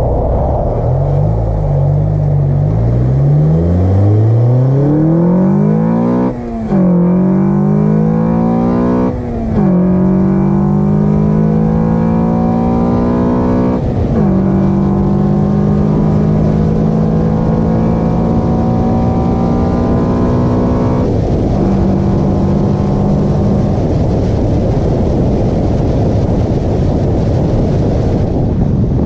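Car engine breathing through an Acuity cold air intake, accelerating through the gears: the pitch climbs, then drops sharply at upshifts about six, nine and a half, fourteen and twenty-one seconds in. In the last few seconds the engine note fades into a steady road and wind rush.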